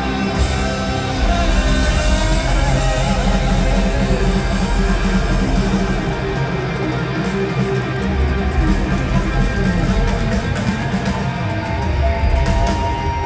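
Live rock band playing loudly, led by electric guitar over bass and drums.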